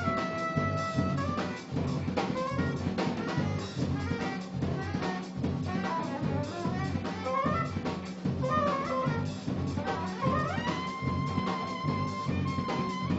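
Live jazz ensemble playing: trumpets, trombone and saxophones over electric bass and drum kit. A held horn chord opens, busy running lines follow, and another long held chord comes in about ten seconds in.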